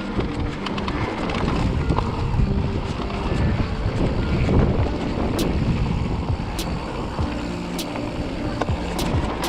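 Mountain bike ridden down a dirt trail: wind on the microphone, with the bike's rattles and knocks over rough ground. In the second half, a sharp tick repeats about every second and a quarter.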